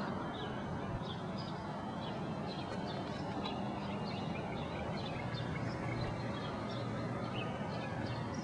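Small birds chirping over and over, many short high chirps, over a steady outdoor background hum.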